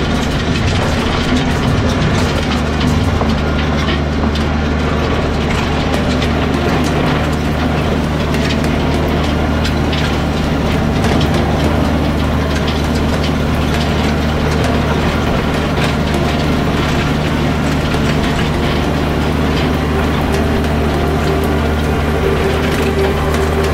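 Kubota BX compact tractor's three-cylinder diesel engine running steadily at an even speed, with constant rattling and clatter over it.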